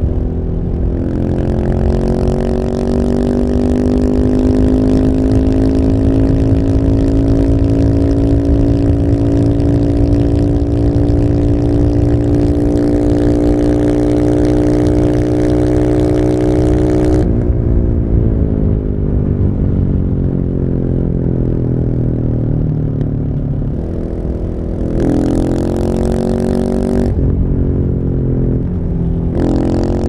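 Single-cylinder engine of a 48 hp-restricted KTM 690 SMC through an Akrapovic full exhaust, pulling under steady throttle at motorway speed with the revs rising slowly for about sixteen seconds. The throttle then closes and the revs fall away on the overrun, and near the end it opens again twice in short bursts.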